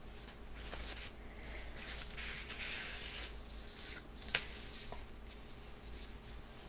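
Faint room tone with soft rustling and a single sharp click about four seconds in.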